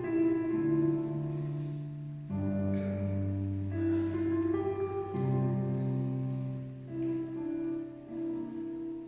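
Piano playing slow, held chords that change every two to three seconds, without singing.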